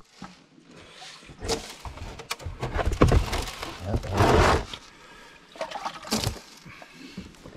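Water and gravel concentrate being rinsed out of a gold dredge's sluice box riffles into a plastic tub: irregular splashing and trickling, with a few knocks from the box being handled. It is loudest from about three to four and a half seconds in.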